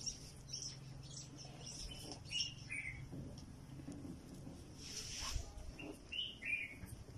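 Faint, scattered short bird chirps over a low steady hum that fades after the first few seconds.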